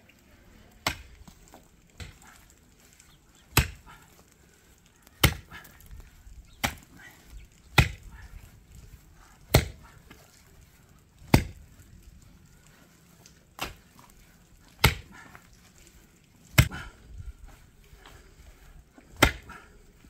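A long-handled pick striking stony earth, one sharp chop every one to two seconds, about a dozen strikes in all.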